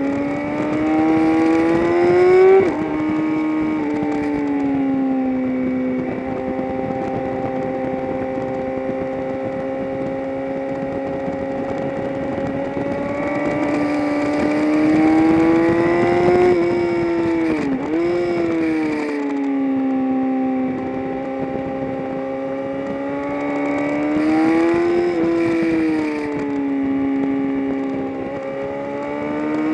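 Race-track vehicle engine running hard at speed. Its pitch climbs and drops sharply at a gear change about two seconds in, holds fairly steady through long stretches, dips briefly and comes back up near the middle, and climbs again under acceleration at the end.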